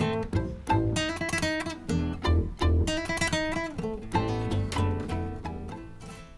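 Acoustic guitar music, plucked notes and strums, fading out near the end.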